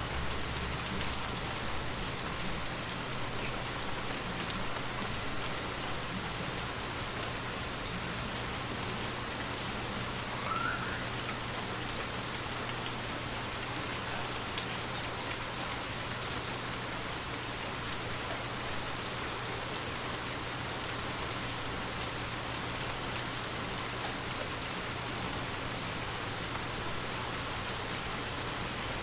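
Steady rain falling on a surface, an even hiss of drops with scattered individual drop ticks. A brief faint chirp about ten seconds in.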